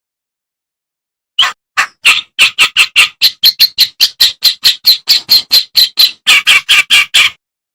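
Kerak basi (a reed warbler) singing its harsh, chattering song: a rapid string of rasping notes, about four or five a second. The song starts after a second or so of silence and cuts off abruptly near the end.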